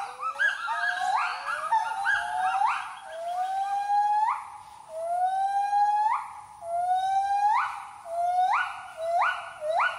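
Gibbons singing: a series of loud whooping calls, each swooping upward in pitch, several overlapping at first, then quickening into a rapid run of short notes near the end.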